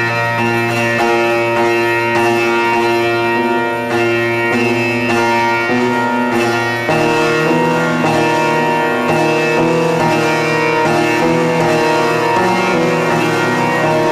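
Grand piano played continuously: a held low note under a dense run of repeated higher notes, with the harmony shifting about seven seconds in.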